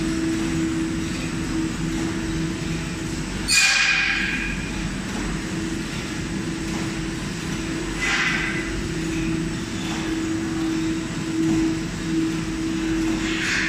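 Automatic paratha production line running, its conveyor drives giving a steady machine hum. Three short hisses break in, about three and a half, eight and thirteen seconds in, the first the loudest.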